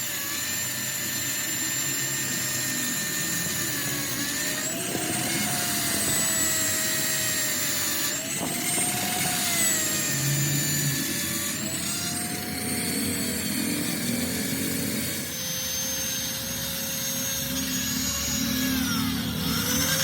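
Workshop power tool running on a cylinder head, with a steady whine that rises and falls in pitch every few seconds and settles a little lower near the end.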